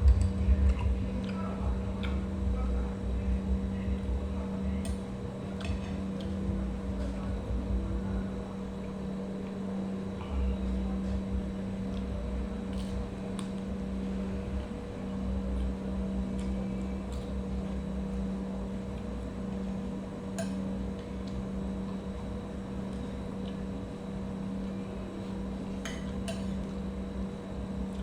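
Kitchen work sounds: scattered light clinks and taps of utensils against dishes or cookware over a steady hum and an uneven low rumble.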